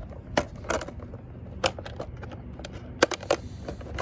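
Sharp plastic clicks and snaps as the body clips are pulled and the plastic body shell of an Arrma Typhon RC buggy is lifted off its chassis. There are about half a dozen spread-out clicks, and the loudest comes at the very end.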